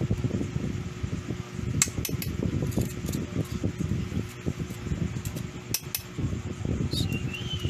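Steady mechanical hum with a few light metallic clicks as hands work on the oil wick and parts under the head of a high-speed lock-stitch industrial sewing machine. A short high squeak comes near the end.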